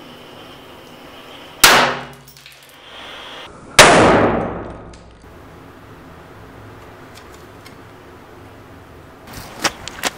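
Two sharp, loud bangs with a metallic ring, about two seconds apart, the second trailing off over a second or so: shots from a small homemade cannon cast from melted aluminium cans.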